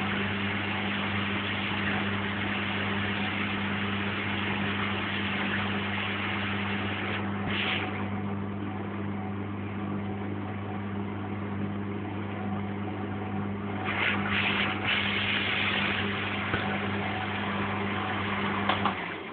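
Lynx 4TS-710A washing machine running its final rinse empty: a steady motor hum under churning water, with a few brief louder swishes. The motor shuts off near the end.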